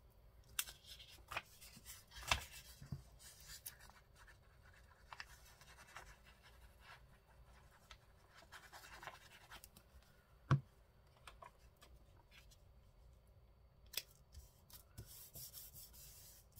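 Paper being handled on a craft table: faint rustling and scratching of paper pieces, broken by a few sharp taps and clicks.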